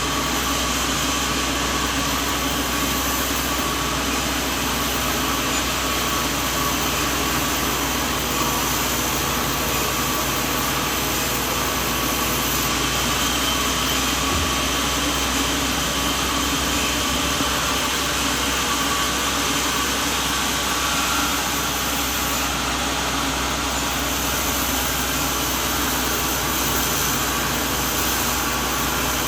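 Sawmill machinery running, a steady, unbroken mechanical drone.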